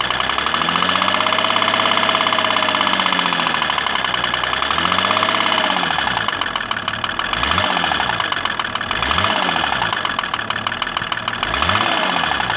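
BMW E34's M51 straight-six turbodiesel knocking while it is revved: one long slow rev up and back down, a shorter one, then three quick blips near the end. The knock is one the owner takes to be probably a worn piston pin.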